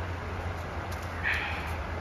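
Steady rush of a creek spilling over a low weir, over a steady low rumble, with one short high chirp just past halfway.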